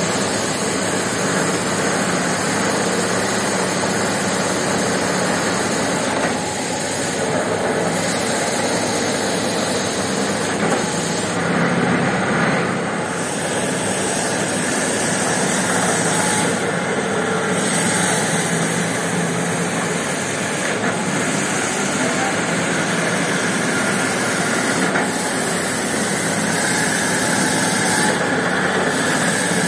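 Electric carpet-scrubbing machine running steadily, its brush churning through a soaked, soapy carpet, with water rushing and splashing under it.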